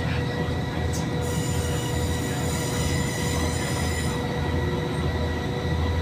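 Diesel passenger train pulling out of a station, heard from inside the carriage: a steady low rumble with high whining tones. A high-pitched squeal comes in about a second in and stops about four seconds in.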